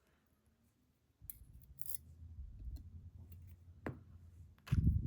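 Low handling noise with a few sharp small metallic clicks, starting about a second in, the loudest near the end: small lock parts being handled while the lock is taken apart.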